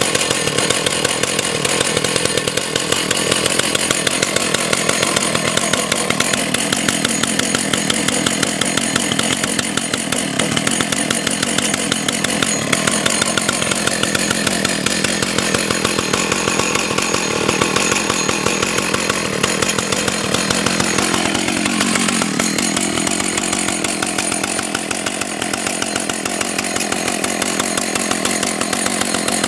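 Vintage Husqvarna 298XP two-stroke chainsaw idling steadily, set down with no hand on the throttle. Its fast even engine beat shifts slightly in pitch and dips a little in level about two-thirds of the way through.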